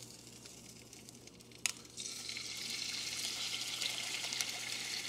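An egg frying in the olive-oil-sprayed non-stick pan of an electric hot pot, set to its 150-watt setting. A short click comes about a second and a half in, and from about two seconds in the egg sizzles steadily.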